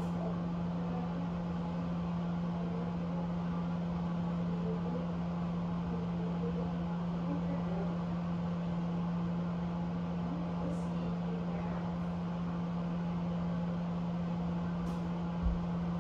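Steady machine hum at one fixed pitch, like a running household appliance or fan, with a brief low thump near the end.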